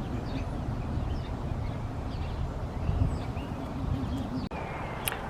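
Low rumbling outdoor noise with faint, short bird chirps repeating every half second or so.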